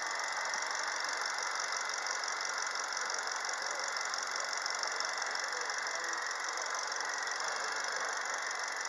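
Hyundai Solaris 1.4-litre G4LC 16-valve four-cylinder petrol engine idling steadily, with a fast, even mechanical ticking from the top of the engine.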